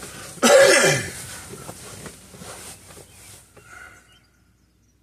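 A man's loud, breathy groan or sigh falling in pitch, about half a second in, followed by faint, quieter sounds that die away to silence near the end.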